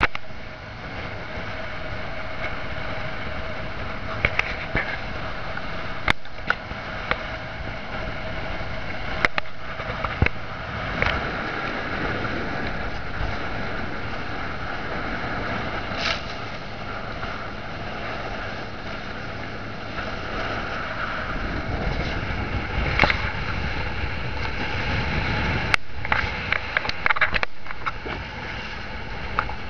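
Steady rush of wind and water aboard a wooden sailing boat under way on a choppy sea, with scattered sharp knocks and clicks.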